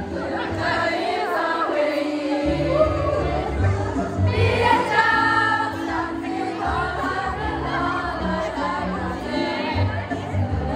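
A graduation song sung by many voices together over musical accompaniment with a steady bass, held notes rising and falling throughout.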